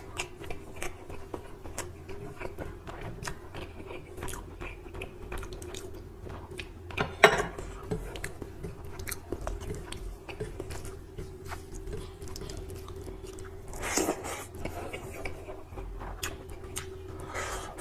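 Close-miked chewing and biting of rice and mutton gravy with chillies: a run of small wet mouth clicks and crunches, with one sharper, louder click about seven seconds in. A faint steady hum lies under it.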